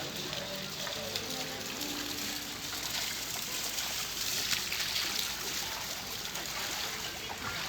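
A steady rush of water, from rain and floodwater running in the street. A faint tune can be heard in the first two seconds.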